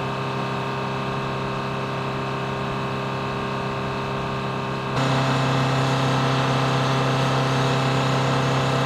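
An engine on the flight-line ground equipment running steadily at a constant speed: an even, pitched hum. About five seconds in it jumps abruptly louder and holds.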